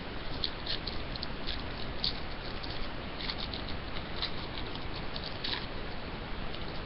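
Trading cards handled and flipped through by hand: a run of light, irregular ticks and rustles over a steady background hiss.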